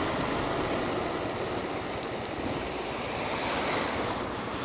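Steady rushing of wind noise on the microphone and tyre hiss on a wet road from a motorcycle riding in the rain.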